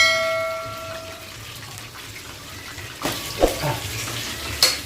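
Hot oil sizzling steadily as chicken pieces deep-fry in a pan. At the start a metal utensil strikes the pan with a clang that rings for about a second. A few sharp clatters of utensil on pan come near the end.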